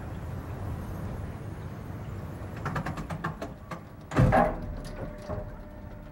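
Steel roller coaster train on its chain lift hill, heard from the front row. A steady rumble gives way to a quick run of clicks, then a single loud clunk about four seconds in as the lift chain takes the train. A faint steady hum follows.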